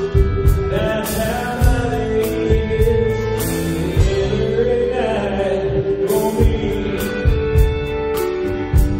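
Live band playing a song, a man singing over a steady drum beat.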